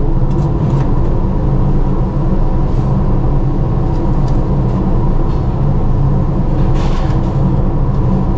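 Steady machinery drone aboard a ship, several constant tones over a low rumble that do not change. A few faint rustles of plastic film come through now and then.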